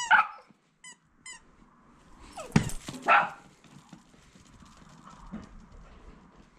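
Small dog giving short, high-pitched yelps near the start, then a single bark about three seconds in, just after a sharp knock.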